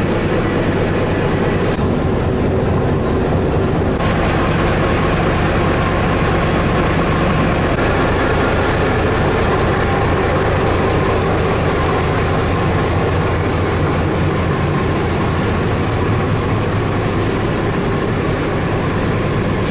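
Diesel multiple unit passing slowly at close range: its diesel engine running steadily, with wheels rolling and clicking over the rails.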